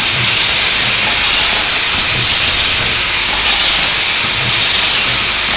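Screw packaging machine with vibratory bowl feeders running: a loud, steady hiss-like noise with faint irregular low knocks underneath.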